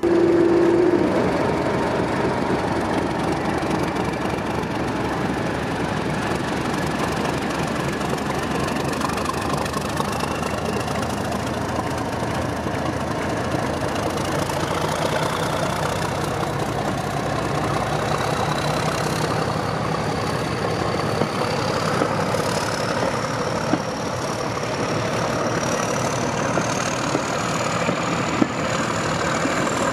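Heritage diesel locomotive engine running steadily under load, with a high whine that climbs slowly and evenly in pitch over the last two-thirds. A brief steady tone sounds right at the start.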